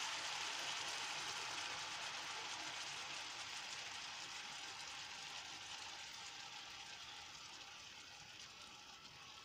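Oil and butter sizzling in a frying pan under halved hard-boiled eggs as pureed tomatoes are poured in from a carton; the steady hiss dies down gradually.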